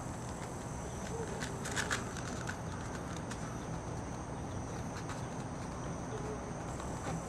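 Copy paper rustling and crinkling in the hands as it is rolled into a tight cone, with a few sharp crackles about two seconds in, over a steady high drone of insects.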